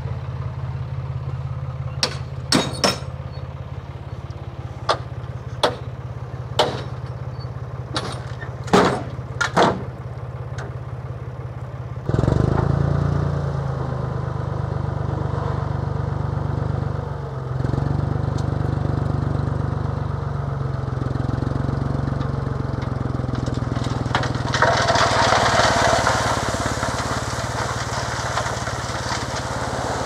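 A tractor engine runs steadily, with a string of sharp knocks in the first ten seconds. About twelve seconds in the engine gets louder as it works harder. Near the end a rushing hiss joins it.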